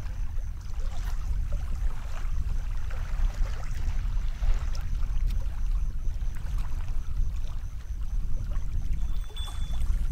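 Wind buffeting the microphone as a steady low rumble, with small waves lapping and ticking on a pebble shore.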